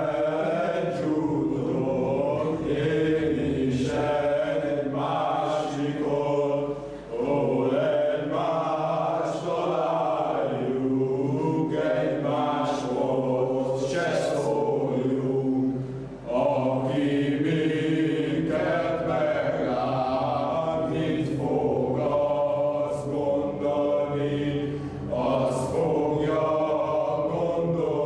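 A group of men singing a Hungarian folk song together, in long phrases with short breaks about 7 and 16 seconds in.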